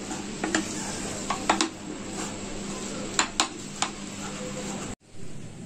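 Wooden spatula stirring crumbled khoya and paneer in a nonstick frying pan over a faint sizzle, with several sharp taps and scrapes of the spatula on the pan. The sound stops abruptly near the end.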